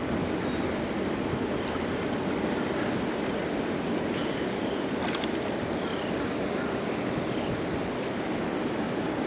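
Steady rushing noise of the Potomac River's current running over rocks, with a few faint, short high chirps now and then.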